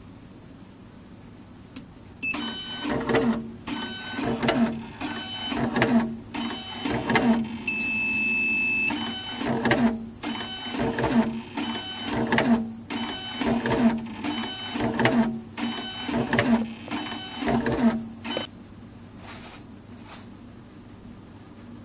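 Automatic cable and heat-shrink-tube cutting machine running a batch: a short electronic beep about two seconds in, then its roller feed whirring and the blade chopping the material off, again and again at about one cut every 0.8 seconds, for some sixteen seconds before it stops.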